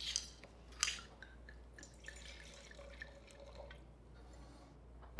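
Red wine being poured from a bottle into a glass, faint, with two short sharp sounds in the first second and then a light trickle and drip.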